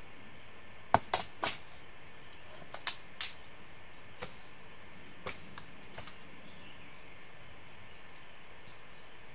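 Steady high-pitched drone of forest insects. Over it come about five sharp clicks or snaps in the first three seconds, then a few fainter ones.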